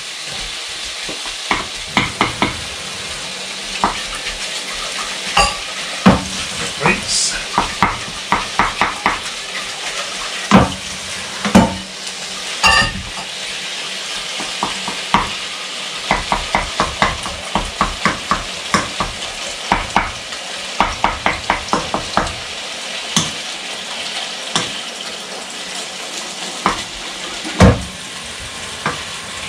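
Mince frying in a frying pan with a steady sizzle, while a wooden spoon taps and scrapes against the pan as the meat is chopped up and turned over, often in quick runs of several taps a second.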